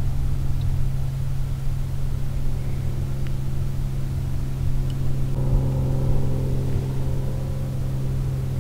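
Truck engine running at a steady speed, giving a constant low tone over a rumble; a few higher overtones join about five seconds in.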